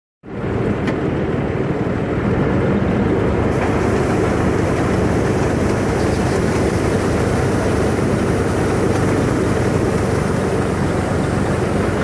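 Wheat-harvesting machine running steadily with a loud, even engine drone; a higher hiss joins in about three and a half seconds in.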